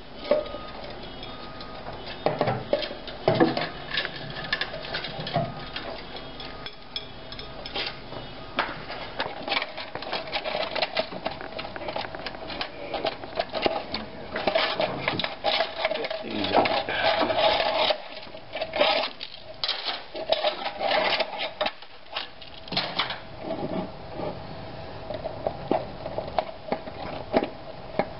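Hand tools and parts clinking, knocking and rattling at irregular intervals during motorcycle repair work, busiest through the middle of the stretch.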